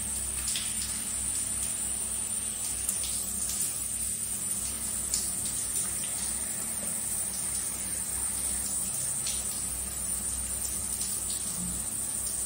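Shower water running in a steady hiss, with a few faint short squelches as hands rub a wet golden retriever puppy's fur.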